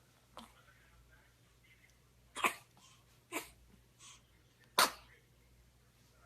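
A baby sneezing three times in quick succession, about a second apart, the first and last sneezes the loudest; a couple of faint sniffs come before and between them.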